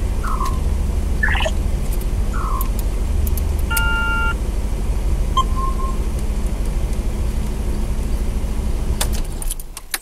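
Inside a Pontiac Trans Am (KITT replica) while it is driven, with a steady low engine and road noise. Three short descending squeaks in the first few seconds are the noise that the title puts down to the fan belt. An electronic beep comes about four seconds in, a short one a second later, and the running noise drops away near the end.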